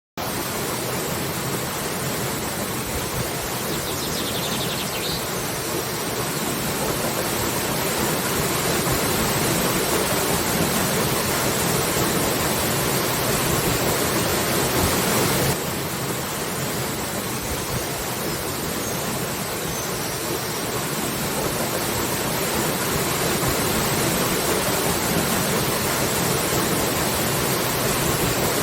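Waterfall: falling water pouring with a steady, dense rush. About halfway through the sound changes suddenly and turns slightly quieter, as at a cut to another stretch of falls.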